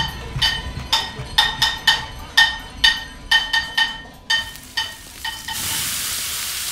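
Closing music of struck, bell-like percussion notes that thin out and stop about five seconds in. A steady sizzling hiss starts about half a second later.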